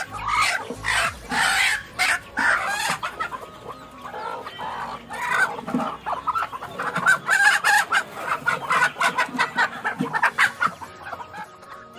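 Broody native hens in wooden nest boxes clucking and squawking in quick, choppy calls as a hand reaches in under them, with a short lull about four seconds in.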